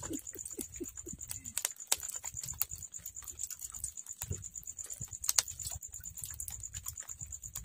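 Irregular light clicks and knocks of a wet gill net being hauled over the bamboo side of a small fishing boat, a couple of sharper knocks about two and five and a half seconds in, over a low rumble and a faint steady high tone.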